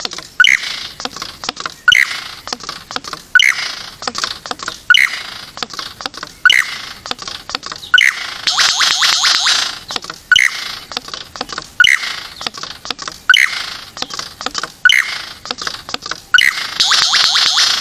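A bird calling over and over: a short sharp call repeated about every one and a half seconds, broken about nine seconds in and again near the end by a longer, rapid rattling trill.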